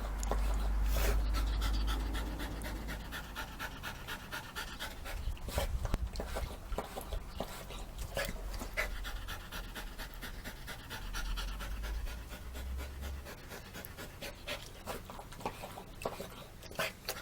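A cockapoo lapping water from its bowl: a quick, steady run of wet laps. A low rumble sounds in the first couple of seconds.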